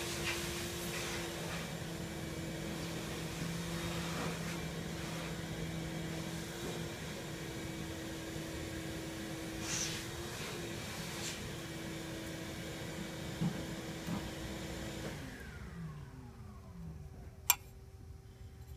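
An electric motor hums steadily, then is switched off about 15 seconds in and winds down, falling in pitch over a couple of seconds. A few light clicks are heard, and one sharp click near the end is the loudest sound.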